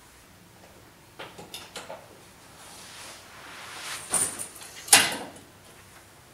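A few footsteps on a hard floor, then the rustle of a backpack being slipped off a shoulder. A sharp thump comes about five seconds in, the loudest sound.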